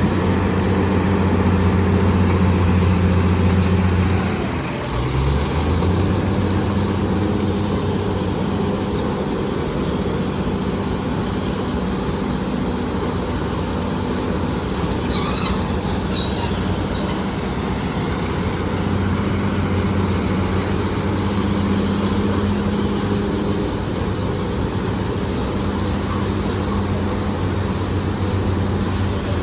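BEML BD355 crawler bulldozer's diesel engine running steadily under work. About four seconds in, the engine note dips briefly and then climbs back.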